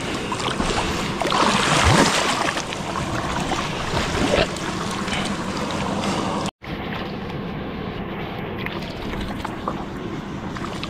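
Shallow water splashing and sloshing, with a few louder splashes in the first half. The sound breaks off for a moment a little past halfway and comes back duller.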